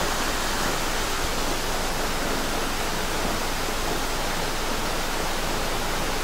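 Steady, even rushing noise with no separate sounds standing out in it.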